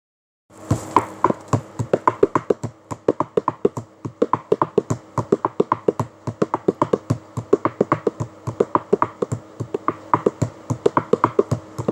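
Fast rhythmic percussion of sharp taps, about five strokes a second in an uneven repeating pattern, over a steady low drone.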